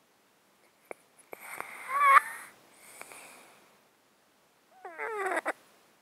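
A sleeping cat breathing through a blocked, snotty nose: a noisy breath with a wavering nasal whistle about two seconds in, a softer breath after it, then a short run of quick rattly squeaks near the end. The congestion comes from a long-standing illness that keeps the cat snotty.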